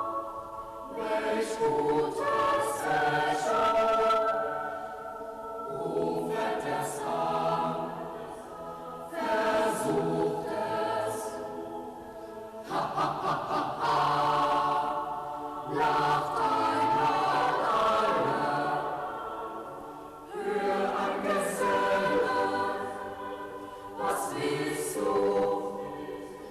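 Boys' choir singing an echo song a cappella, in phrases a few seconds long.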